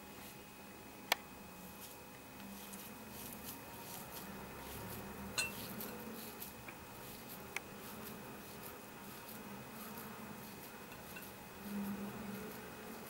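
Hands scooping and pressing a crumbly sesame-and-khoya laddoo mixture in a glass bowl, a faint soft rustling. Three short sharp clicks against the glass bowl: about a second in, about five seconds in and about seven and a half seconds in.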